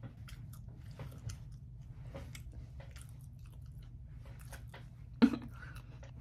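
Faint, irregular small clicks and crunches over a low, steady hum, with one sharper knock about five seconds in.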